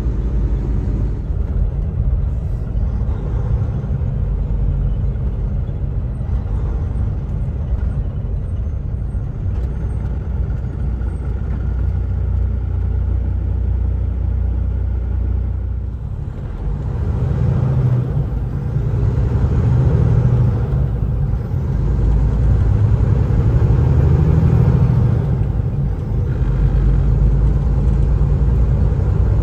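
Kenworth T680 semi truck's diesel engine and road noise inside the cab, a steady low rumble. About halfway through it dips briefly, then grows louder with a rising engine note as the truck accelerates, easing off briefly twice.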